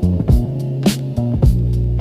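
Background music in a funk style, with a steady beat and a bass line.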